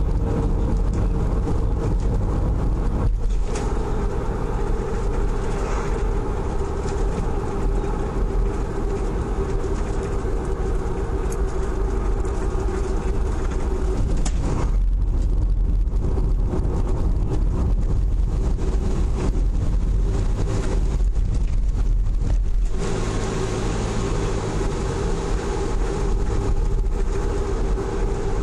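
Car driving along a road, heard from an onboard camera: a steady low rumble of engine and road noise with a constant drone underneath. The tyre hiss grows brighter about three quarters of the way through.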